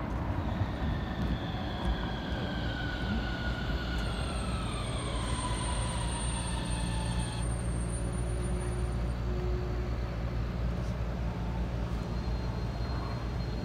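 Portram light-rail tram passing close by, its electric drive giving a whine that falls steadily in pitch and cuts off suddenly about seven seconds in, over a steady low rumble.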